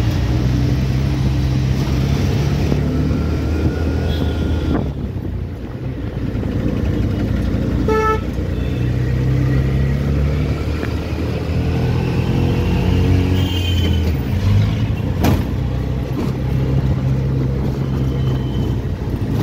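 Auto-rickshaw engine running as it moves through dense traffic, with road and traffic noise around it. A short horn toot about eight seconds in.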